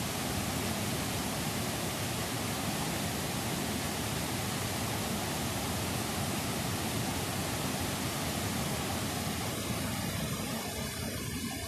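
Fast white water rushing steadily down a steep cascade, a dense even noise. It thins slightly near the end.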